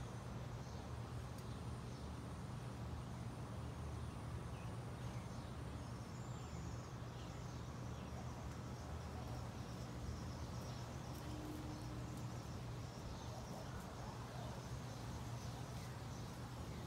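Backyard ambience: a steady low hum with scattered faint bird chirps, and a thin high insect-like whine that stops about six seconds in.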